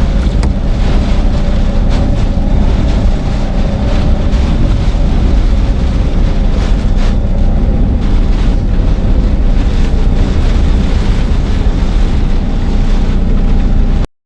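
Hurricane-force eyewall wind blowing hard and buffeting the microphone in a loud, steady rush with a faint steady whistle underneath; it cuts off abruptly near the end.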